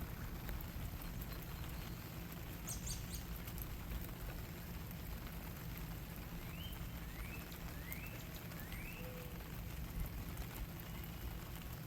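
Steady rain falling, a continuous patter. A few short high chirps cut through it, including four quick rising chirps in a row midway.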